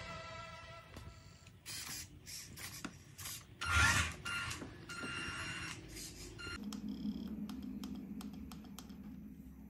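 Small electric RC crawler running on a wooden floor, its motor and gears whirring in short spurts, with clicks and knocks. A low steady hum sets in about two-thirds of the way through.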